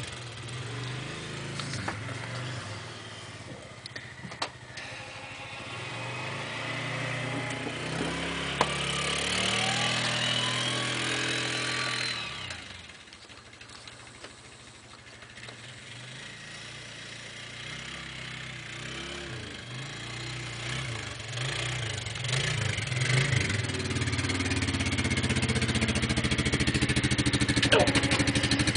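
ATV engine running as it plows snow with a front blade. It rises and falls with the throttle, drops away suddenly about twelve seconds in, then grows steadily louder toward the end as the quad comes up close.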